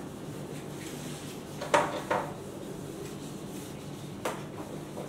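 Handheld whiteboard eraser wiping marker off a whiteboard, with a few sharp knocks as it bumps against the board, the loudest a couple of seconds in.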